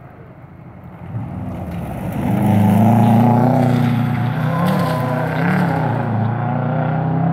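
Rally car engine approaching on a gravel stage, growing louder from about a second in and running hard. Its revs rise and dip a couple of times near the middle.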